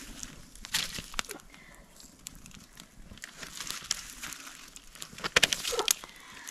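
Dry twigs and brush crackling and crunching as they are handled and fed onto a small campfire: scattered sharp snaps, with the loudest flurry of snapping and crinkling about five seconds in.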